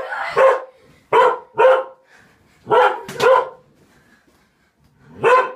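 Pet dog barking repeatedly, about seven sharp barks mostly in pairs half a second apart, with a pause of over a second before the last one. The dog is worked up, and the children take it as the dog being ready to attack them.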